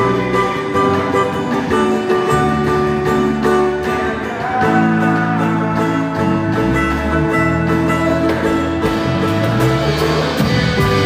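Instrumental worship music with sustained chords, a moving bass line and a steady beat.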